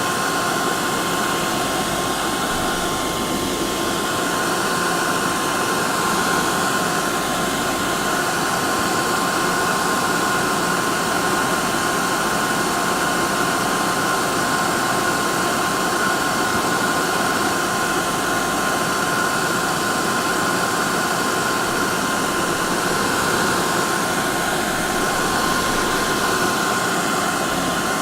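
Hair dryer running continuously: a steady rushing blow with a constant whine.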